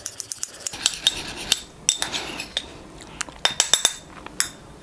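A metal spoon stirring thick, cornstarch-based fake blood in a small ceramic ramekin, clinking irregularly against the sides and bottom of the dish with short ringing ticks.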